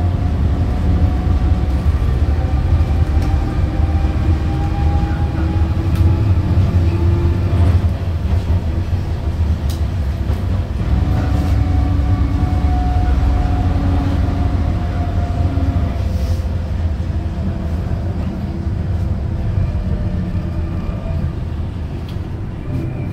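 M31 tram running at speed, heard from inside the car: a steady low rumble with a motor whine that climbs in pitch twice as it accelerates, and a few faint clicks from the track.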